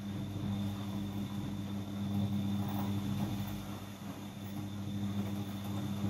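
Siemens iQ100 front-loading washing machine in its main wash after heating has finished, its motor turning the drum with the wet laundry. A steady motor hum, with a thin high whine and the swish of the tumbling load rising and falling slightly.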